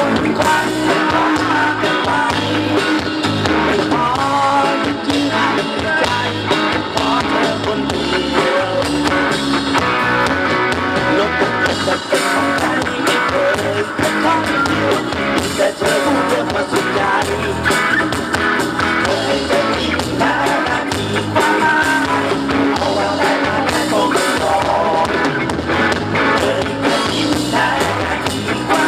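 Live band playing a song with a steady drum beat and a wavering lead melody.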